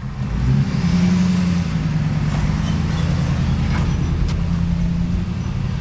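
Plate compactor running steadily, vibrating across newly laid pavers to settle them into their bedding and the sand swept into the joints. It comes up to full speed about half a second in.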